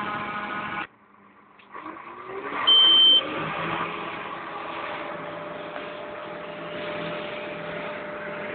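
Farm machinery engines at silage harvesting: a Claas forage harvester and tractor running, then, after a cut, a tractor engine heard from inside its cab picking up speed and running steadily. A short, loud, high beep sounds about three seconds in.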